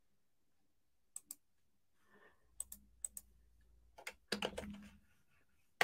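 Faint, scattered computer keyboard key presses and clicks, a handful of isolated taps with a short cluster about four seconds in.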